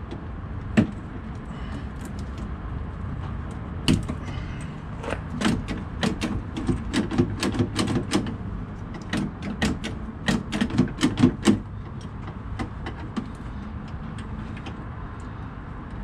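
Sharp metallic clicks and taps from a Kenworth W900 cab door's handle and lock assembly being fitted by hand, with its retaining tabs being put back on. One click comes about a second in, then a quick, irregular run of clicks from about four to eleven seconds in.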